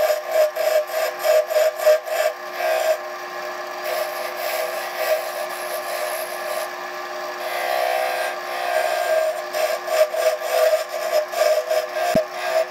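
Wood lathe running with a steady hum while a turning tool cuts the spinning spalted cherry goblet blank, a rough scraping of steel on wood. The cutting comes in quick repeated strokes, about two or three a second, at the start and again from about nine seconds in, and runs smoother in between.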